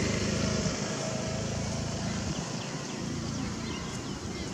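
Steady outdoor background noise, with faint high chirps in the second half.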